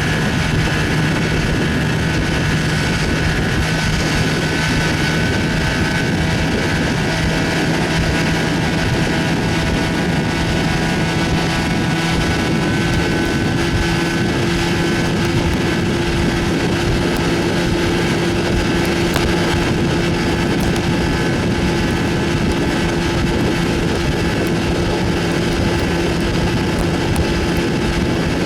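A 1970 Evinrude 25 hp two-stroke outboard motor running steadily under way, with wind on the microphone. Its exhaust baffle gasket is leaking badly. The engine's steady tone moves up to a higher pitch about a third of the way through.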